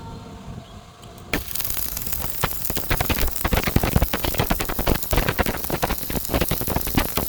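An electric stick-welding arc strikes on a round tube about a second in and then burns with a steady dense crackle and sizzle as the weld is run.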